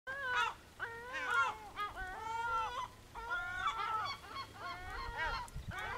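A flock of gulls calling over one another, a steady run of overlapping cries, some drawn out, that rise and fall in pitch.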